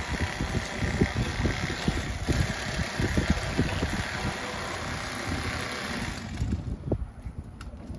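Electric fillet knife running, its reciprocating blades sawing through a crappie, with a brief dip a couple of seconds in. The motor cuts off about six seconds in.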